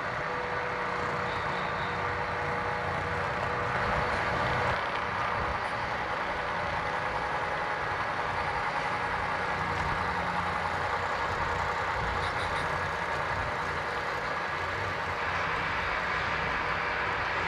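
Model freight train running on a layout: the Union Pacific 3300 'United Spirit' locomotive model hauling boxcars, giving a steady mechanical running rumble and hum. A faint steady tone runs under it for the first four seconds or so and then fades.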